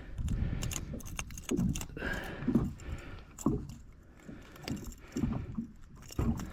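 Gusts of wind buffeting the microphone in uneven low surges, with scattered clicks and rattles.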